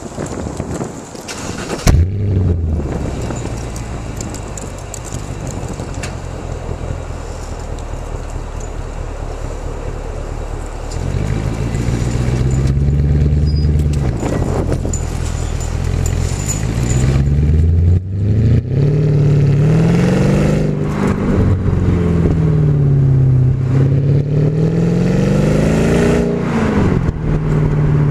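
Mercedes CLK550's 5.5-litre V8 exhaust, the engine catching about two seconds in and settling to a steady idle. In the second half it is revved several times, the pitch rising and falling with each blip.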